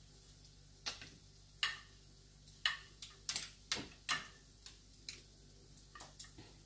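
Light clicks and taps of plates and food being handled: about a dozen short knocks at irregular spacing as fried patties are moved onto a serving plate and the plate is picked up.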